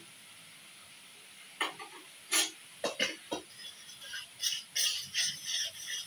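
A cooking utensil knocking and scraping against a metal pan that rests on a pot of hot water, as spaghetti is stirred in carbonara sauce. A few separate knocks start about a second and a half in, then quicker clinks and scrapes follow.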